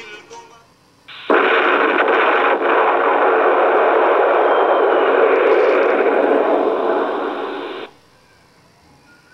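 A steady hiss of static noise that starts abruptly about a second in and cuts off sharply about six and a half seconds later.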